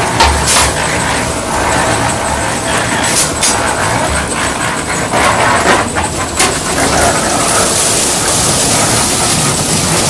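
Drum concrete mixer running, its engine going and the turning drum churning gravel and cement, with scattered knocks and clatter.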